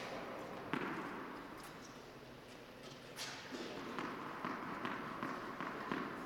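Tennis ball being bounced on the court before a serve: a couple of single knocks, then from about four seconds in a steady run of bounces, about two a second.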